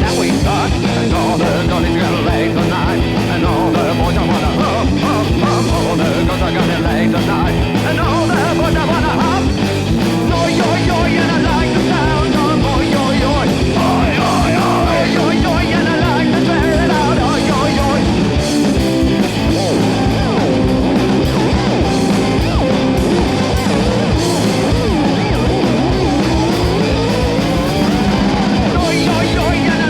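Punk rock band music: electric guitars, bass and drums with a steady beat, and singing over it.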